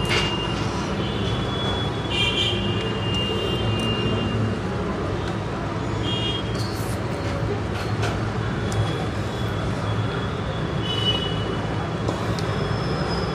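Steady low rumble of background noise, with a few short, faint high-pitched tones in the first few seconds and again later.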